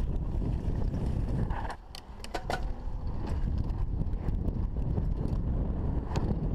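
Wind rushing over the microphone with a low rumble as a mountain bike rolls downhill. Near two seconds in the rush drops for a moment and a few sharp clicks and rattles stand out, with one more click near the end.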